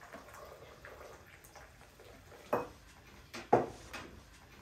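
Tea glasses and saucers knocking on a wooden table as they are set down: two sharp clinks about a second apart, the second louder, with a few lighter taps around them.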